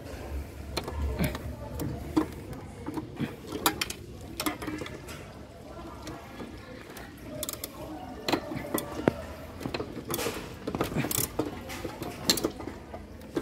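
Ratcheting socket driver clicking in short, irregular runs as bolts are tightened, with small knocks of the tool against metal.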